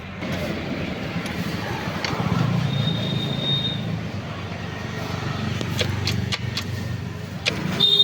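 A motor vehicle engine running steadily, with a brief high steady tone about three seconds in.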